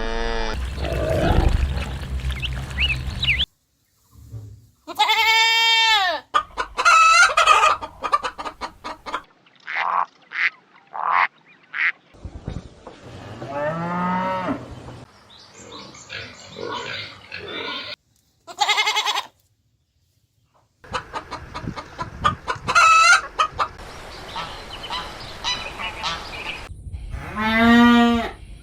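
Farm poultry calling, with geese honking and chickens clucking, in several short clips spliced together with brief silent gaps between them. Several calls are loud, long and arching.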